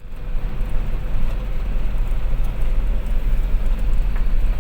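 Six-wheel truck running down a mountain grade: a steady deep rumble of engine and road noise.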